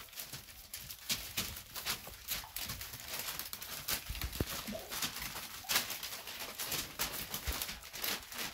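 Puppies' and adult Labradors' paws and claws pattering and scuffing irregularly on a paper-covered floor, with the paper rustling.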